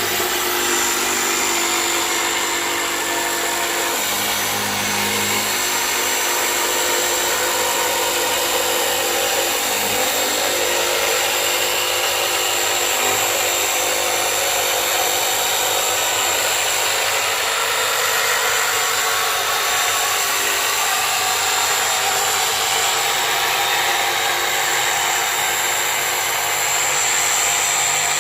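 Handheld power tool running steadily while cutting an opening in the generator box, with a constant high-pitched whine.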